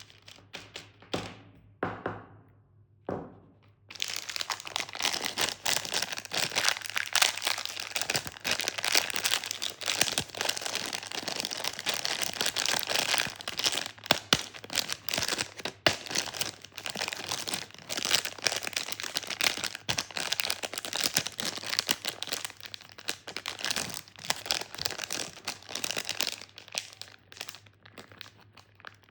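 A few separate taps, then long, dense crinkling of a plastic candy wrapper being handled and opened, thinning out near the end.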